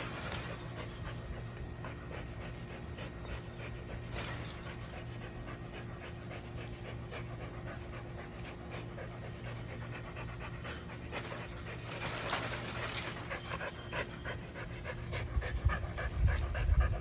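Dog panting rapidly and steadily, louder for a couple of seconds about two thirds of the way through, over a steady low hum. Some low thumps come near the end.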